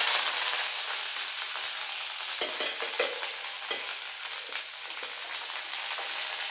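Dried red chillies and curry leaves sizzling hard as they hit hot oil in a kadai for a tempering. The sizzle is loudest at first and slowly settles. A steel slotted spatula stirs and knocks lightly against the pan a few times.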